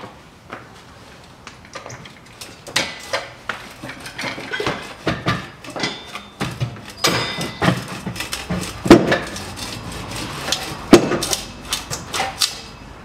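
Irregular metallic clanks and knocks of a Range Rover Evoque's exhaust silencer and pipe being lifted and fitted into place under the car. They grow busier after a couple of seconds, with two loudest knocks about two seconds apart.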